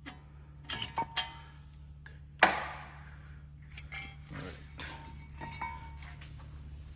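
Metal tools and brake parts clinking as they are handled and set down: a few light clicks, then one louder clank that rings briefly about two and a half seconds in, then more scattered light clinks.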